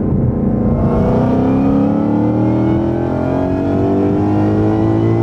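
Supercharged V8 of a Shelby Mustang on a wide-open-throttle pull from about 50 mph in third gear, heard from inside the cabin. The engine note climbs steadily in pitch, dips briefly about three seconds in, then climbs again.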